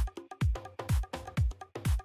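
Background electronic dance music with a steady kick drum, about two beats a second, each beat a deep thud that drops in pitch, and short synth notes between the beats.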